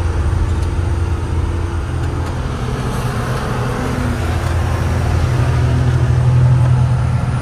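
Truck engine running steadily under load as the truck climbs a ghat road: a continuous low drone with road noise, growing a little louder in the second half.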